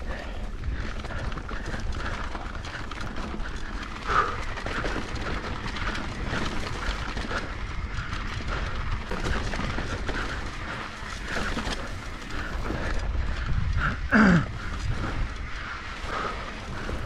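Mountain bike riding fast down a dirt singletrack: a steady low wind rumble on the mic, with the rattle and clatter of the bike and tyres over the rough trail. About 14 seconds in there is a short, loud falling tone.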